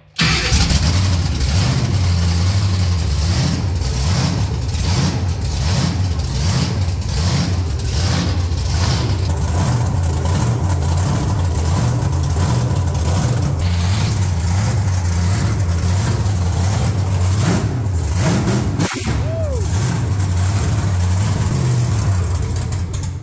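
Monster truck's engine firing up at once and running loud and steady, with a regular pulsing rumble, dipping briefly about 19 seconds in. It is a first start on newly wired, temporary electrics, with the engine pre-warmed by a block heater.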